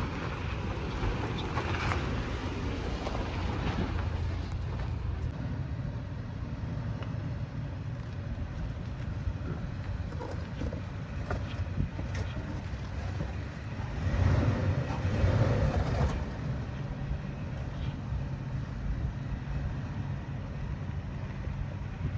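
Off-road truck engine running low and steady as it crawls over rocks, with wind buffeting the microphone; the rumble swells louder for a couple of seconds about two-thirds through.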